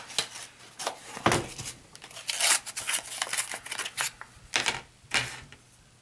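Plastic blister packaging with a cardboard backing being pried and torn open by hand: irregular crinkles, snaps and tearing clicks, with several louder cracks. It dies down near the end.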